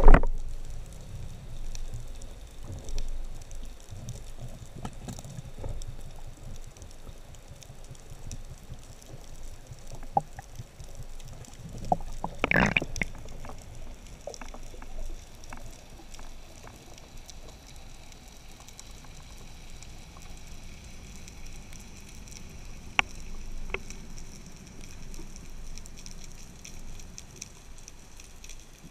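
Underwater sound heard through a speargun-mounted camera's housing: a low rumble of moving water with scattered small clicks and knocks. There is a knock at the very start and a louder rushing surge of water about twelve seconds in.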